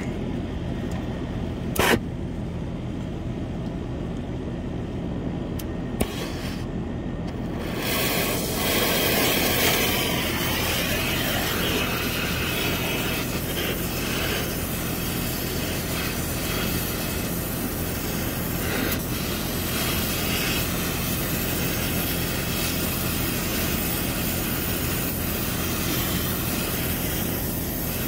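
Oxy-acetylene torch burning with a steady rushing hiss as it heats a copper suction-line joint for brazing. The hiss starts about eight seconds in, after two sharp clicks.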